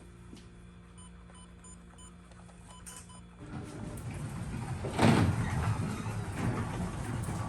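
A few short electronic beeps. About three seconds in, a garage door opener's motor starts and the door begins to travel, a steady mechanical rumble and rattle that swells about five seconds in.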